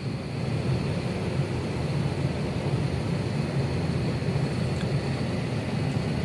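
Steady low hum in the cabin of an Airbus A320 parked before takeoff: air-conditioning and ventilation noise, with a faint, steady high whine over it.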